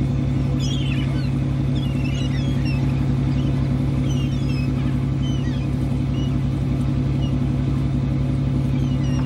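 Sport-fishing boat's engine running with a steady low drone. Over it come many short, high chirping calls, typical of birds following the boat.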